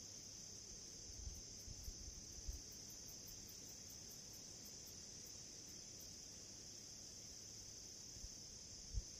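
Faint, steady chorus of crickets, a continuous high trill that does not change. A few soft, low thumps are heard between about one and two and a half seconds in, and again near the end.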